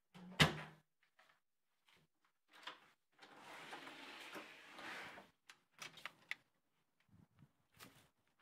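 A sharp knock, then a door sliding open for about two seconds, followed by a few light clicks.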